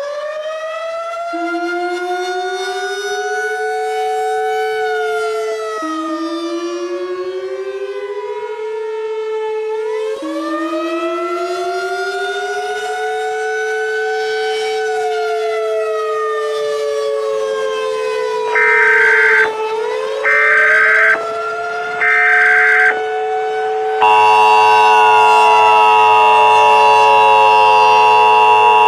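Civil defense siren wailing, rising and falling slowly in pitch, with a second tone climbing in steps beneath it. Near the end come three short bursts of emergency alert data tones, the EAS header, followed by a louder steady EAS attention tone.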